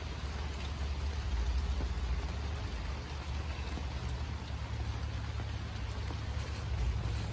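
Light rain pattering on a tent canopy over a steady low rumble.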